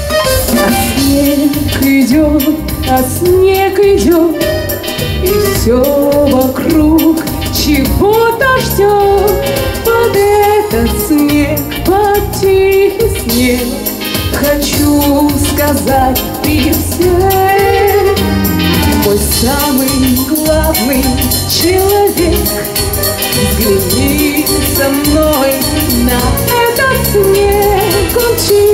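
A woman singing a song into a handheld microphone over instrumental accompaniment with a steady beat.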